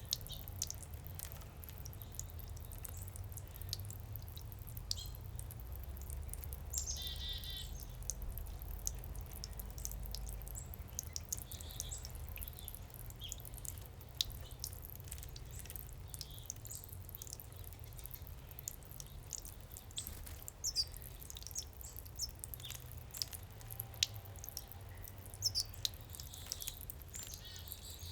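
Backyard garden fountain with water dripping and splashing in an irregular patter, while small birds chirp on and off, one clear call about seven seconds in. A low steady rumble sits underneath.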